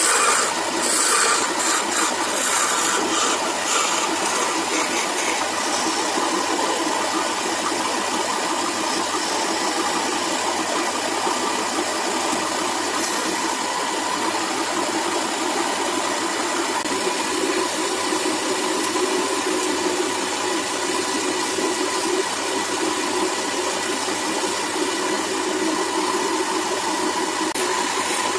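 A wood lathe runs steadily with a faint motor whine while a hand turning tool cuts a small spinning wooden spindle. Scratchy cutting noise comes in short bursts during the first few seconds, then settles into a steady hiss.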